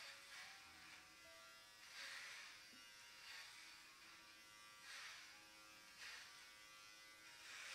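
Electric hair clippers running faintly, buzzing steadily while being run through curly hair for a buzz cut, with a hiss that swells every second or so.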